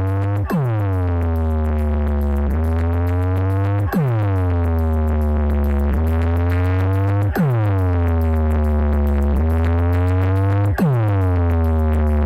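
Electronic DJ music played loud through a DJ sound system: a heavy, sustained bass under held synth tones, broken by a sharp falling pitch sweep that comes four times, about every three and a half seconds.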